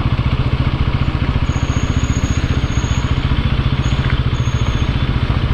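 Motorcycle engine running steadily at low revs, an even low throb with no change in pitch.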